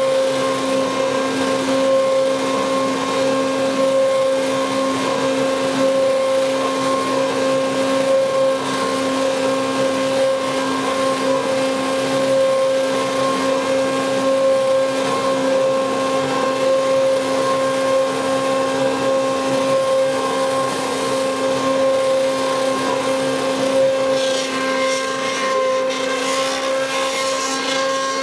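Stick blender running steadily with a constant motor whine, its head immersed in thick cream soap batter to mix it toward trace. Near the end the sound turns rougher and hissier.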